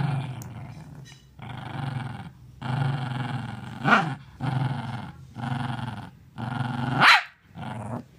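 Small long-haired dog growling over a chew held in its paws: a run of low growls, each under a second long with short breaks between, and two sharper, louder outbursts about four and seven seconds in.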